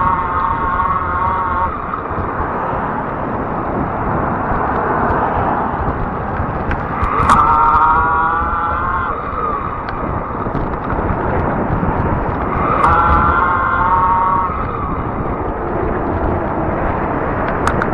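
Steady wind rushing over the microphone with tyre and road noise from a fat tire e-bike rolling along. A pitched whine comes and goes three times: it fades out about two seconds in, then returns around seven seconds in and again around thirteen seconds in.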